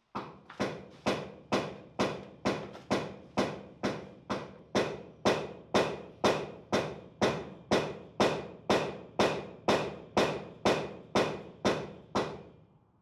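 A steady, even run of about twenty-five sharp knocks, a little over two a second, each ringing briefly; they start and stop abruptly.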